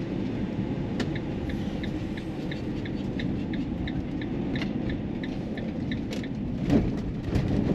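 Car cabin road rumble with a regular clicking, about three clicks a second, that stops about six seconds in, typical of a turn-signal indicator as the car pulls over to stop. A couple of louder knocks follow near the end.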